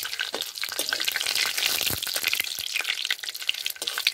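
Cumin, dried red chillies and bay leaves sizzling in hot mustard oil in a metal kadai, with a metal spatula scraping and clicking against the pan as they are stirred.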